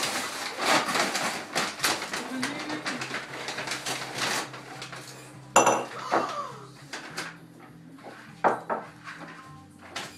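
Paper gift bags and tissue paper rustling and crinkling as hands dig through them, busiest in the first half and thinning out later, with one sharp knock about halfway through.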